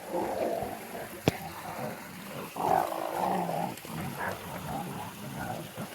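Heavy, effortful breathing and grunts from climbing up a rocky creek, with one sharp knock about a second in.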